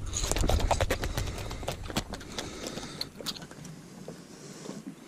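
Quick, irregular clicks and knocks of hands handling fishing tackle and a catch on a boat deck, dense for the first two and a half seconds and thinning out after about three seconds. A low rumble fades away after about three and a half seconds.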